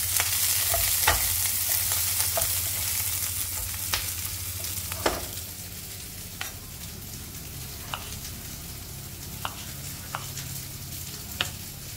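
Onion chunks sizzling in a little oil in a nonstick frying pan, stirred and scraped with a spatula. About five seconds in the sizzle drops away, and a few separate sharp knocks follow as a knife cuts tomatoes on a wooden chopping board.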